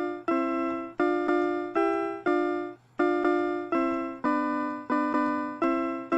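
Background music: a simple melody of single notes that each start sharply and fade, about two a second.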